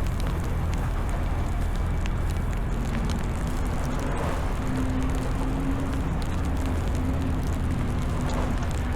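Steady low rumble of city street traffic, with a faint steady hum joining about three seconds in.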